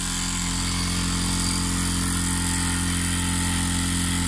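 Gas-fired Mamod Centurion TE1313C model steam engine running steadily on live steam just after starting, spinning a small belt-driven generator. The engine is running light, with no electrical load on the generator yet.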